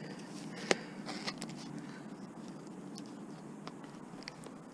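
Small scrap parts being handled in gloved hands: one sharp click under a second in, then a few fainter light clicks and taps, over a steady low background noise.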